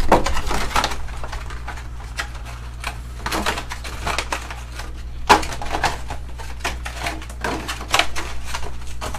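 Plastic and cardboard trading-card packaging being handled and opened: clusters of crinkling and clicking, four or so separate bouts, over a steady low hum.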